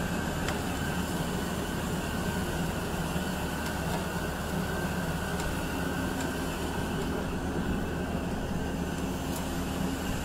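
Steady machine drone with a constant high whine, unbroken throughout.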